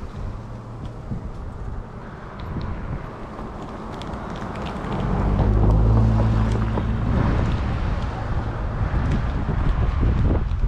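Strong wind buffeting the microphone in a low, steady rumble. About halfway through, an engine swells in and then fades off.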